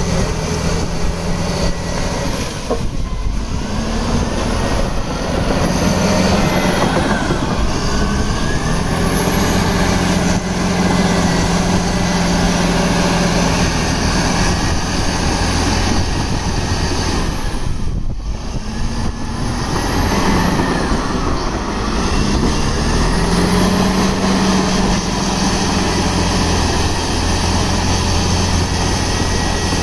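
Caterpillar D7R crawler bulldozer's diesel engine running steadily. A high whine rises and falls several times as the machine moves, and the sound dips briefly just past the middle.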